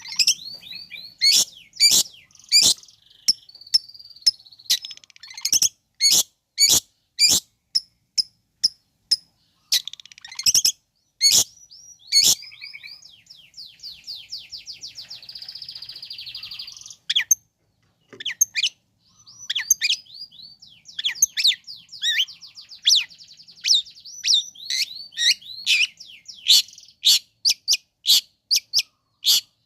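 Long-tailed shrike (cendet) singing loudly: a string of sharp, harsh notes a few tenths of a second apart, broken by fast chattering trills.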